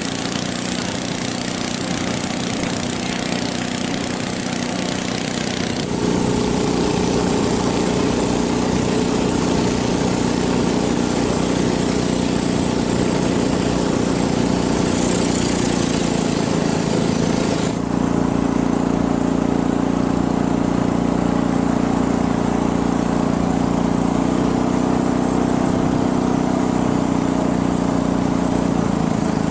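Motorboat engine running steadily under way, with a hiss of water and wind. The engine note shifts suddenly about six seconds in and again after about eighteen seconds.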